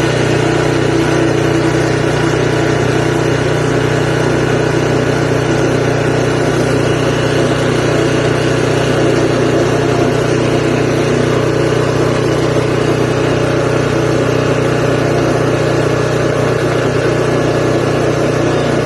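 Forest Master FM6DD wood chipper's 6 hp petrol engine running steadily.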